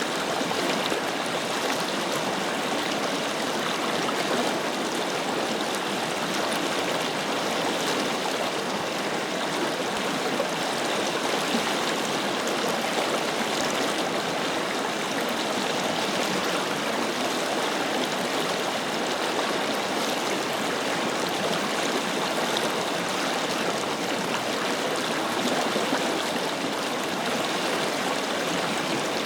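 Forest river flowing steadily over rocks, a continuous rushing with fine splashing and gurgling detail.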